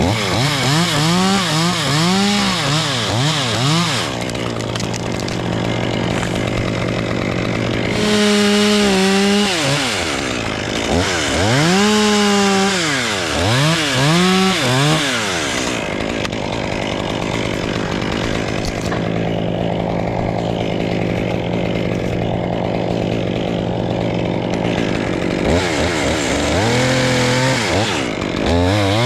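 Two-stroke chainsaw idling, then revved up and down in quick repeated bursts three times: at the start, from about eight to fifteen seconds in, and near the end.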